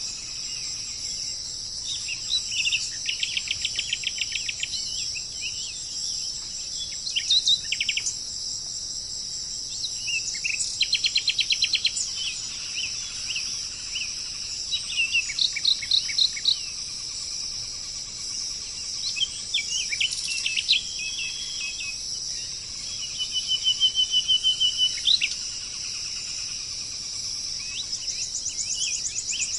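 Birds calling in short, rapid trills and chirps every few seconds over a steady, high-pitched insect chorus.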